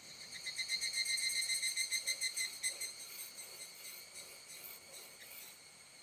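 Steady high-pitched insect chirring, with a louder insect giving a rapid pulsing trill of about ten pulses a second for some two and a half seconds before it stops.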